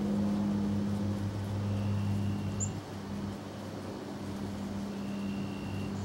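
A steady low motor hum, like an engine running at constant speed. A single short high chirp comes about two and a half seconds in.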